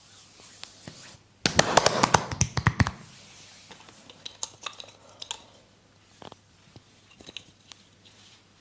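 Massage: a quick run of loud slaps of hands on the body lasting about a second and a half, then scattered softer clicks of hands working on skin.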